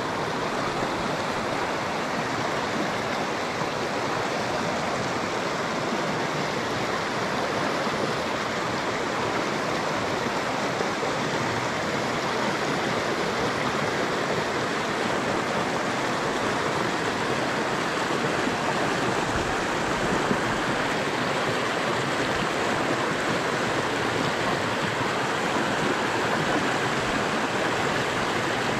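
A fast mountain creek rushing over rocks in whitewater, heard close up as a steady, even roar of water.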